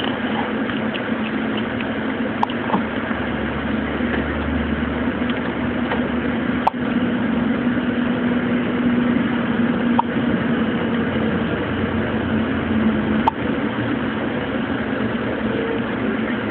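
A baby hiccuping: a short, sharp hiccup about every three seconds, four in all, over a steady droning hum.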